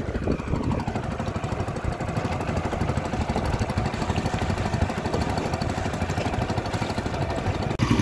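Small fishing boat's engine running steadily with a rapid, even chug. Near the end it drops out for an instant and comes back louder.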